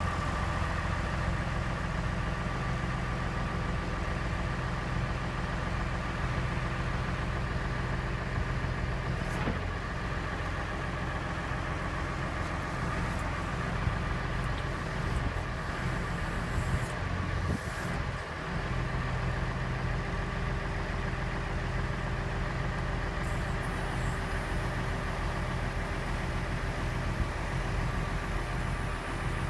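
Tractor engine running steadily, powering the hydraulics of a HIAB crane while the boom is raised and extended. Steady tones sit over the engine note, with a brief dip about eighteen seconds in.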